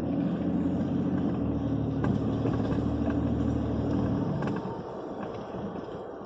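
Truck engine running steadily as the truck drives, then its note fades and gets quieter about four seconds in as the truck slows.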